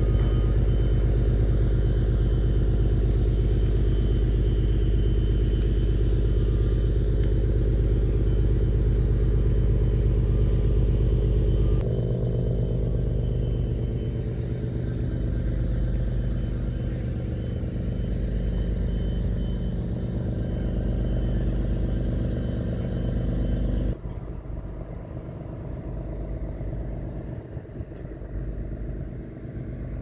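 Docked ro-ro ferry's diesel engines running at berth: a steady, low, loud rumble. It drops abruptly about twelve seconds in, and again about six seconds before the end, where it turns fainter and less even.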